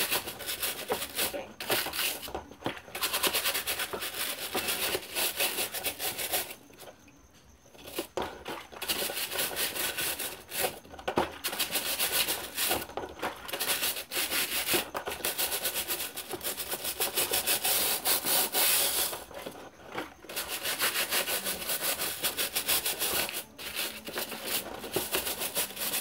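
A brush scrubbing the grille of an Arno Turbo Silêncio fan in quick back-and-forth strokes. The strokes stop for about two seconds near seven seconds in and again briefly near twenty seconds in.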